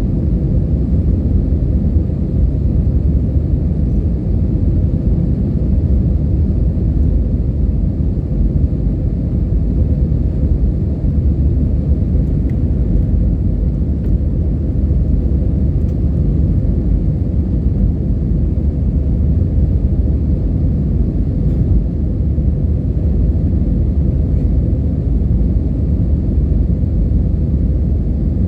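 Airliner cabin noise in flight: a steady, loud low rumble of engines and airflow, with a faint steady hum above it.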